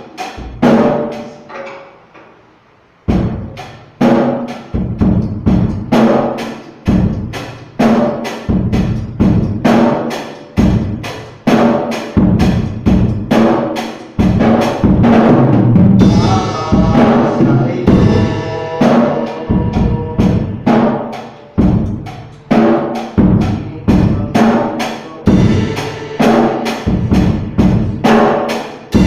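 Acoustic drum kit played as a warm-up on the freshly repaired set: a few strokes, a short pause, then a steady run of drum strokes, with a cymbal ringing out about halfway through.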